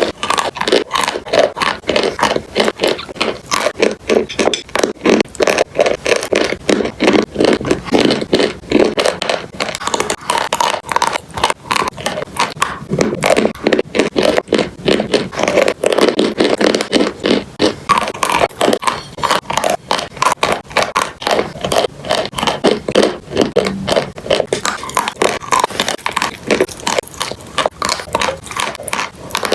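Close-miked crunching of chalk and clay: a dense, unbroken string of sharp crunches, several a second.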